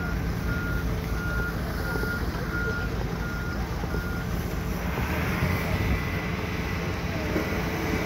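Backup alarm of a reversing heavy road-construction vehicle, beeping evenly about once every three-quarters of a second over the steady low rumble of its engine. The beeping stops about halfway through, and a steady high tone comes in soon after.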